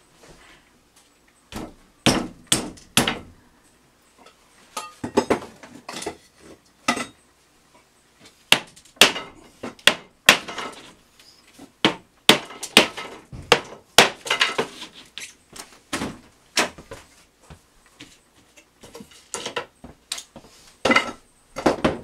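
Hammer blows on wooden wall framing, irregular strikes, some in quick runs of several, as the wall is torn out.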